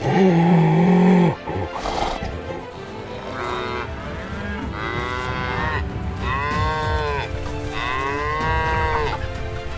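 Cattle mooing: one loud, low moo at the start, then about four higher moos, each rising and falling in pitch.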